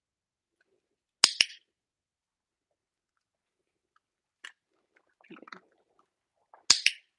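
Hand-held dog-training clicker pressed twice, about five seconds apart, each press a sharp double click, pairing the click with a food treat to teach the dog that it means food is coming. Between the clicks come fainter sounds of a dog taking and chewing the treat.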